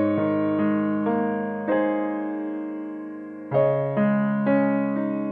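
Slow background piano music: notes and chords struck and left to fade, a new one about every half second to a second, with a longer pause in the middle.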